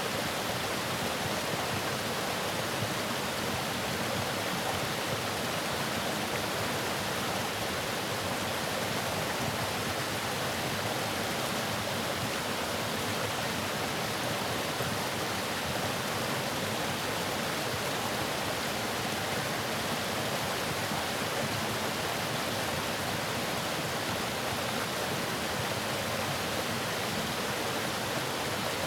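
Waterfall rushing steadily: a constant, even roar of falling water with no change.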